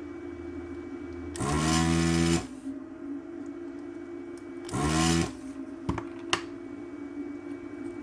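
Desoldering station's vacuum pump running in two short bursts, about a second and then half a second, sucking molten solder from a capacitor's leads on the circuit board. Two sharp clicks follow.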